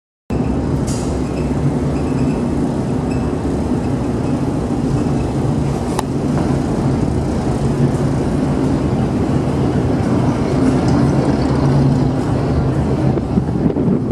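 Steady low rumble and hum of the ferry M/V Hyak's engines and machinery, heard on board while under way, with a single sharp click about six seconds in.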